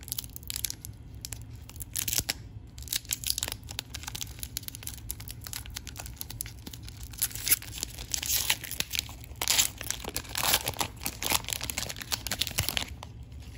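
Foil wrapper of an Upper Deck MVP hockey card pack being torn open by hand: an irregular run of crinkling and ripping, louder and denser in the second half, stopping shortly before the end.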